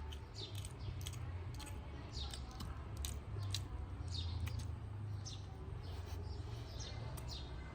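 Birds chirping: many short, high chirps that slide downward, several a second, over a steady low hum.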